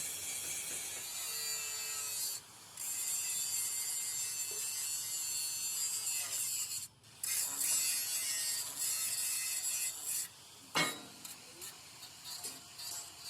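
Metalworking on a hydraulic cylinder rod: a steady hissing scrape of tool on metal that breaks off briefly twice, then a sharp click about eleven seconds in, after which it goes quieter and uneven.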